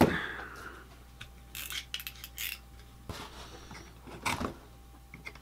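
A razor-blade utility knife cutting and scraping the tape on a small cardboard box: a few short scratchy strokes and light clicks, after a knock at the very start.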